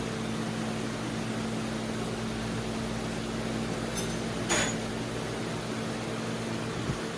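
Steady machine hum with an even hiss, like a fan or motor running. There are two short clicks about four seconds in, and the hum cuts off suddenly at the end.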